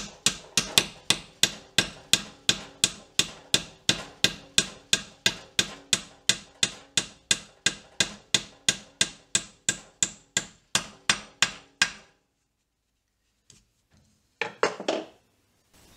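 Hammer driving a wooden peg through a steel dowel plate on a bench vise. Rapid, even blows come about three or four a second, each with a short metallic ring, and stop about twelve seconds in. A brief clatter follows near the end.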